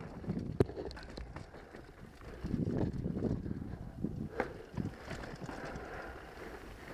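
Downhill mountain bike rolling fast over dirt and rocks: rough tyre noise on the trail with sharp clicks and knocks from the bike, growing louder and rougher for about a second starting two and a half seconds in.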